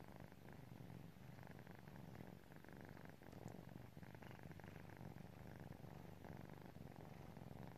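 Black kittens purring faintly and steadily while they sleep curled together.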